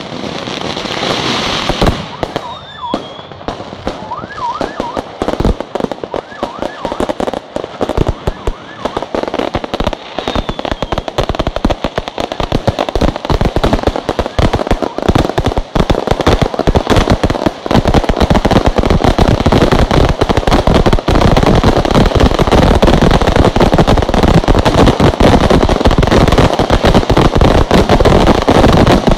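Fireworks display: a rapid string of bangs and crackles, with a few whistling pitch glides in the first several seconds, building into a dense, continuous barrage of explosions from about two-thirds of the way in.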